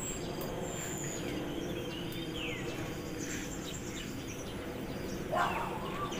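Outdoor ambience: a steady background hiss with faint bird chirps, and one louder short call about five seconds in.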